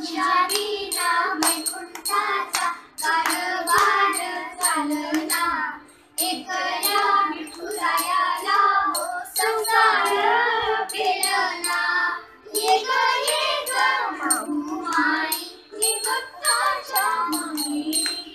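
Two children singing together, keeping time with steady hand claps and a metallic jingle on each beat.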